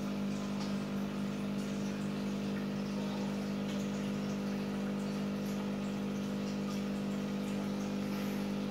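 Aquarium pumps humming steadily, with faint bubbling from a ring air stone in a goldfish tank.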